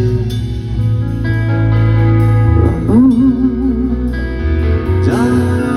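Unplugged rock band playing: guitars held over a steady bass line between sung lines, with a short wavering vocal phrase about halfway through.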